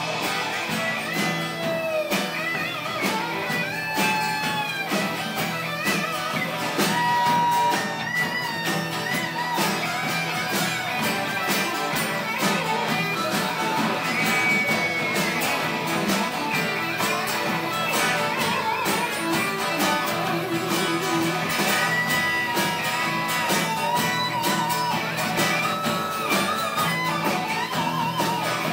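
Live band playing rock music: electric and acoustic guitars to the fore, with drums and an accordion.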